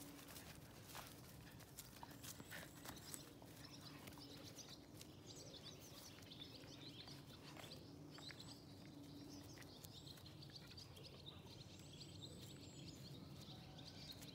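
Faint outdoor birdsong: small birds chirping and twittering with many short, high notes. There are a few light taps in the first few seconds and a faint steady low hum underneath.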